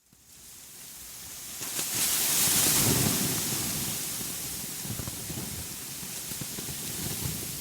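Outdoor ambience: a rushing, hissing noise that fades in from silence, swells loudest two to three seconds in, then settles, with a low rumble beneath.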